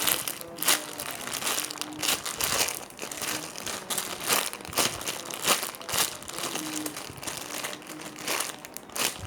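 Plastic crinkling and crackling in irregular sharp bursts as a squishy toy is handled and squeezed.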